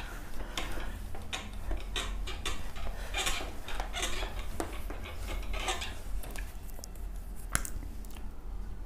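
A cloth duster wiping a whiteboard clean in quick repeated rubbing strokes, then a single sharp click about seven and a half seconds in.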